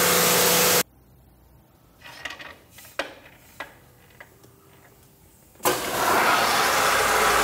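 A Kranzle electric pressure washer running with a steady loud hiss stops abruptly under a second in. A few light clicks and knocks follow in the quiet as a small portable Kranzle unit is handled. About five and a half seconds in, a pressure washer starts and runs steadily.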